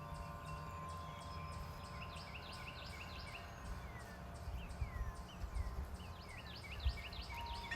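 Several songbirds calling together: a rapid run of short chirps with a few downward-slurred whistles in the middle. Wind rumbles on the microphone, and wind chimes ring faintly about a second in and again near the end.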